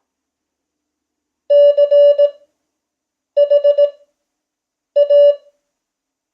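Morse code sent as a steady beep tone at 5 words per minute Farnsworth speed: three characters of dots and dashes, the first about a second and a half in, each followed by a long gap.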